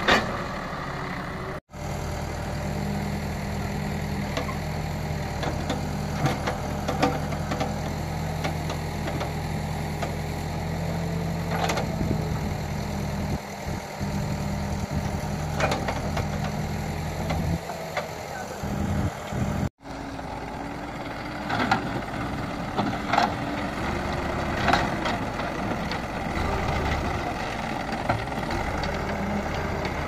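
Case 770EX backhoe loader's turbocharged 3.9 L diesel engine running steadily as the machine digs and moves soil, with scattered knocks of earth and rocks. The sound cuts out abruptly for an instant twice, once about two seconds in and again about twenty seconds in.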